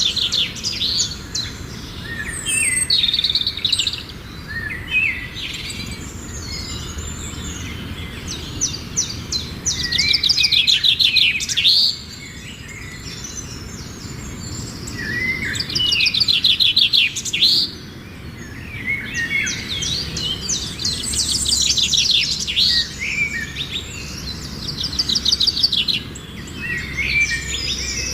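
Songbirds singing and calling, with fast trilled phrases coming every few seconds over a faint low rumble.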